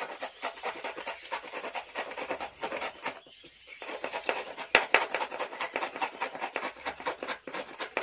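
A green vegetable being grated on the fine side of a metal box grater: quick scratchy rasping strokes. There is a short pause about three seconds in, and two sharp clicks a little before the five-second mark.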